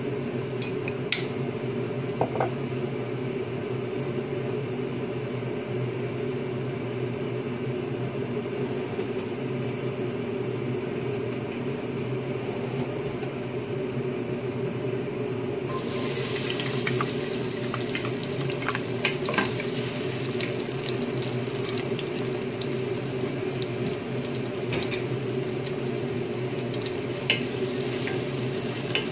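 A steady low hum runs throughout. About halfway through, diced onions start sizzling in hot oil in a stainless steel pot, and a wooden spatula stirs them with scattered scrapes and knocks against the pot.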